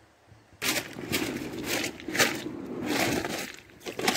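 Inflatable kayak being boarded and settled on the water: irregular crunches, scrapes and knocks of its vinyl hull and the gear in it, starting suddenly about half a second in, with a brief lull near the end.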